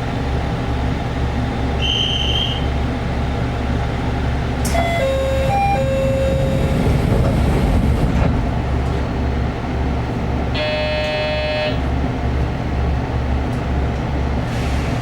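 Diesel railcar engine idling at a stop, a low rumble that pulses steadily. Short electronic signal tones cut in over it: a brief high beep about two seconds in, a few pitched tones around five to seven seconds, and a harsh buzzer lasting about a second near the eleven-second mark.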